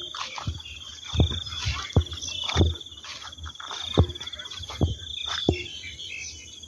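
Steady high-pitched insect trilling, with about eight soft, uneven thumps of footsteps on mown grass over it.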